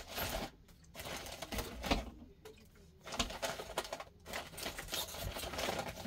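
Groceries and water bottles being handled and packed into a portable 12 V fridge: irregular runs of small clicks, knocks and rustles, broken by short pauses.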